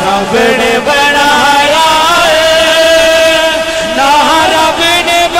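A man chanting a devotional verse (a Punjabi naat couplet) into a microphone, drawing out long melismatic notes: one note held steady for about two seconds in the middle, with wavering, ornamented phrases before and after it.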